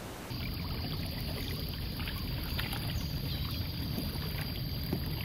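Water trickling and lapping against a kayak hull as it moves, over a low rumble, starting about a third of a second in after a brief hiss.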